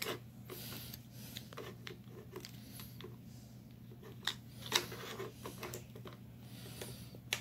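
Faint plastic clicks and rubbing from a small Happy Meal disc-launcher toy as a disc is fitted into it, with two sharper clicks a little past four seconds in.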